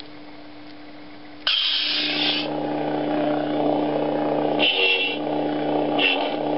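Lightsaber sound effects from a Nano Biscotte sound board in a custom LED saber hilt. The ignition sound starts suddenly about a second and a half in. It is followed by the steady electric blade hum, with two short bright bursts laid over the hum near the end.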